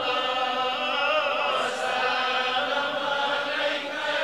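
Slow, drawn-out chanting of a darood (blessings on the Prophet), with long held notes that waver gently in pitch.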